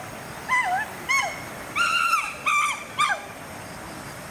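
A series of about five short, high-pitched animal calls in quick succession, each rising and falling in pitch.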